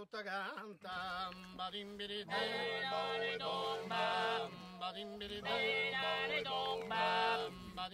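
Music: men's voices singing an unaccompanied chant, with a melodic voice wavering over steady held low notes.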